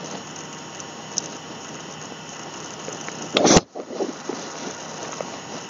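Steady hiss of background noise picked up by a computer microphone, with one short, loud rush of noise about three and a half seconds in.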